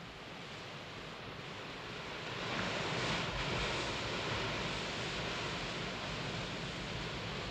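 Sea surf and wind on an open beach: a steady rushing noise that swells over the first three seconds, then holds.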